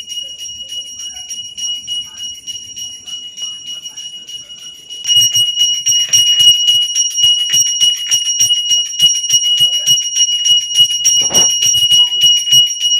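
Brass puja hand bell rung fast and continuously, its clear ringing tone struck several times a second, growing much louder about five seconds in, with a regular low thud alongside from then on.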